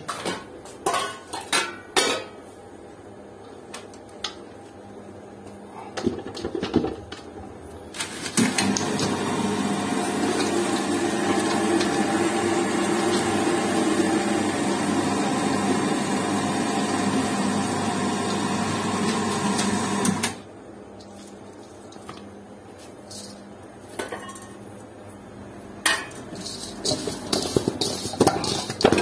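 Electric stainless steel meat grinder running steadily for about twelve seconds while it pushes minced meat out through its plate, starting about eight seconds in and cutting off suddenly. Metal clinks and knocks of a steel bowl come before it starts and near the end.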